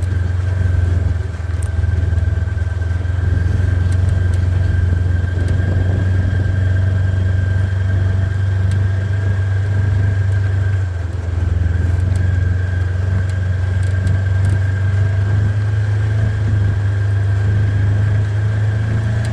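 Four-wheeler (ATV) engine running steadily as it is ridden, a constant low hum with a faint steady whine above it, easing off briefly twice.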